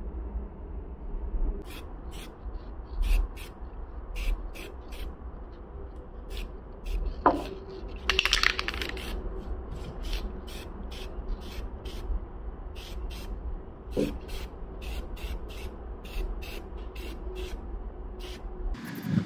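Hands and tools working on a broken plastic part: scattered sharp clicks and scraping, with a short hiss about eight seconds in over a steady low hum.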